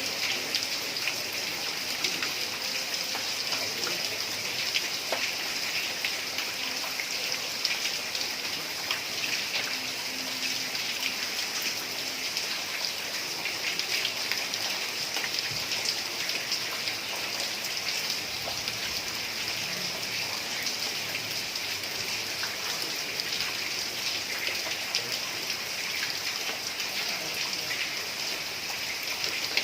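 Heavy rain falling steadily on a tiled roof: an even rushing hiss dotted with countless small drop ticks, with no let-up.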